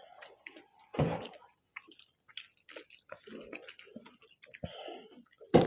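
Eating sounds: chewing and mouthfuls of rice and egg curry, with wet smacks and small clicks, and a louder burst about a second in and another near the end.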